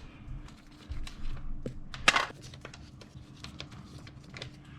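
Light clicks and scraping of hand work on the Yamaha TW200's air filter cover screws, with one sharper click about two seconds in.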